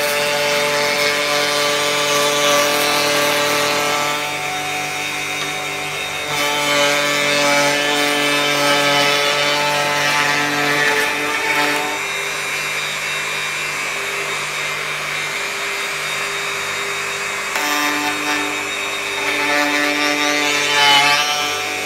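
Electric hand planer running steadily while being pushed along a jig, its motor whine and the noise of the cut shifting a few times as the cutter bites into the wood and eases off.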